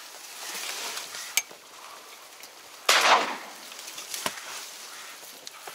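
Rustling and handling noise in reeds and an inflatable boat, with two sharp clicks and one loud, noisy burst lasting under half a second about three seconds in.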